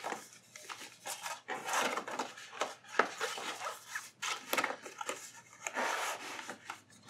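A notebook and its packaging being slid back into a small cardboard box by hand: irregular rustling and scraping of cardboard and paper, with a few sharp taps, the sharpest about three seconds in.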